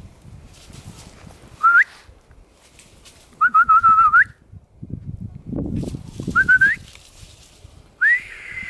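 A person whistling to call a dog: a short rising whistle, then a warbling trilled whistle, another short rising one, and a longer rising note near the end. Between the whistles there is rustling through leafy undergrowth.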